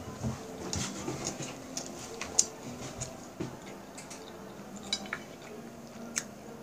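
Wooden chopsticks clicking and scraping against a glass plate as they pick through fried rice, in scattered sharp clicks.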